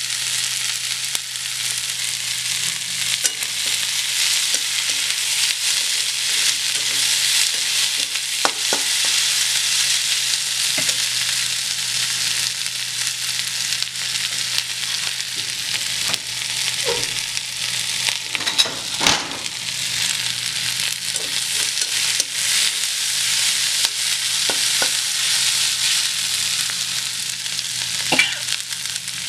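Sliced onions sizzling steadily in hot mustard oil in a steel kadhai as they are lightly browned, stirred now and then with a metal spatula that scrapes and clicks against the pan a few times, most sharply about two-thirds of the way through.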